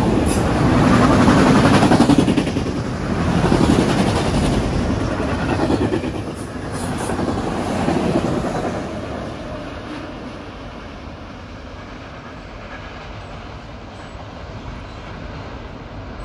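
CSX autorack freight train rolling past at about 53 mph, its steel wheels clattering over the rail joints. The sound swells and ebbs for the first several seconds, then drops about nine seconds in to a lower, steadier rumble.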